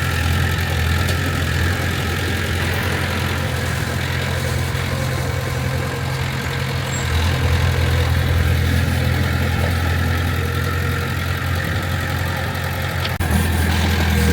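Heavy diesel earthmoving machinery running steadily with a deep, even engine hum. The sound cuts sharply about thirteen seconds in and then comes back slightly louder.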